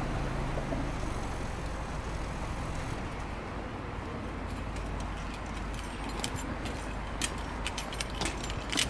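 Subaru Legacy B4 2.0GT spec B's EJ20 turbocharged flat-four idling steadily, heard at the twin exhaust tips. From about halfway through, a scatter of sharp clicks and crackles joins it.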